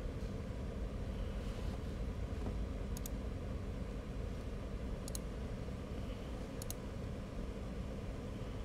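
Electric fan running steadily with a low whooshing hum, blowing air over the drone's DJI Vista video transmitter to keep it cool. Three short, sharp double clicks come about three, five and six and a half seconds in.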